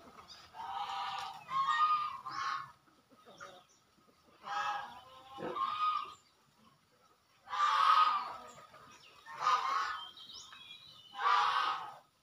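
Farmyard fowl calling: a series of harsh, honking calls, each under a second long, repeated every second or two.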